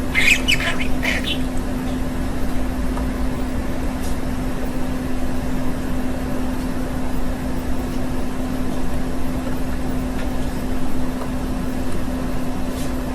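A budgerigar gives a short burst of high, quick chirps during the first second or so. After that there is only a steady low hum with room noise.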